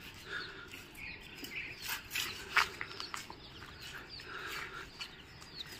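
Chicks peeping faintly: many short, high, falling chirps, with a few light clicks mixed in.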